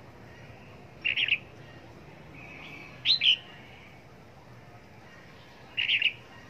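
Red-whiskered bulbul calling: three short, loud phrases, each about a third of a second, roughly two and a half seconds apart.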